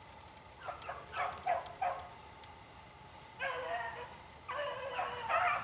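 Beagles baying while running a rabbit: a few short yelps in the first two seconds, then two long drawn-out bays from about the middle on.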